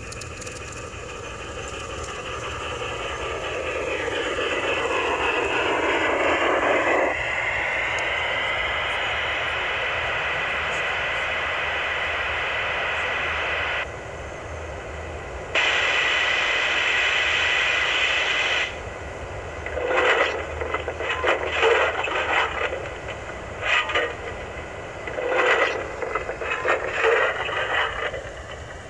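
45 mm gauge garden model train running past close by: an electric motor whine whose pitch slides over the first few seconds, then a steady whirr with wheel noise on the track. The whirr drops out briefly about halfway, and in the last third it breaks into uneven clattering as the coaches roll over the track.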